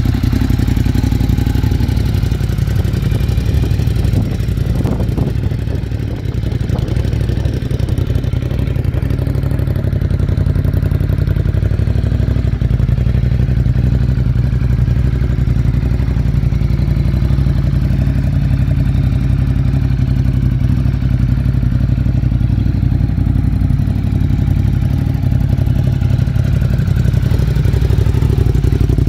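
2017 Ducati Monster 821's L-twin engine idling steadily through an aftermarket Exan exhaust.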